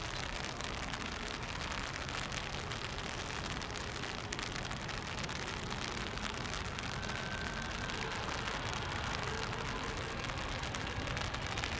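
Steady rain falling, an even hiss. A faint jet engine whine comes in during the second half.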